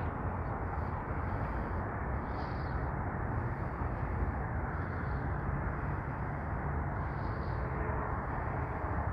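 Steady outdoor background noise, a low even rumble like wind or distant traffic, with faint high blips recurring about every two to three seconds.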